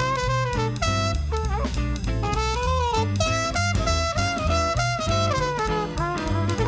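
Traditional New Orleans jazz band playing: a horn carries a solo melody with sliding, bending notes over a stepping bass line and drum kit.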